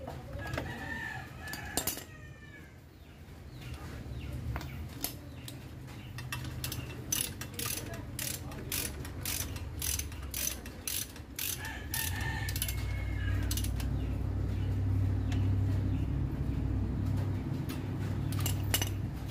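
Ratchet wrench clicking as it turns a bolt, a run of quick clicks at about three to four a second through the middle. A rooster crows in the background near the start and again later, and a low steady hum builds in the second half.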